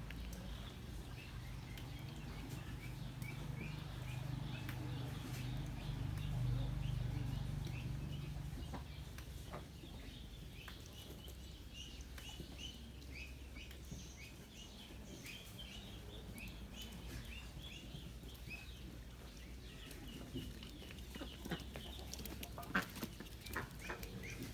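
Farm poultry calling, with many short high peeps repeating throughout. There is a low rumble underneath during the first half, and a few sharp knocks near the end.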